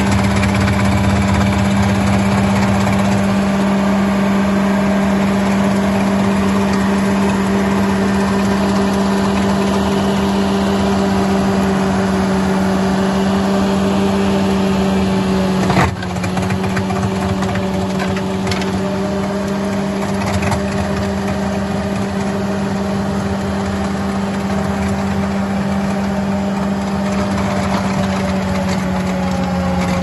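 Ditch Witch SK1550 mini skid steer running steadily with a constant hum while its saw trencher attachment cuts a trench through field turf and soil. A brief abrupt break in the sound about halfway through.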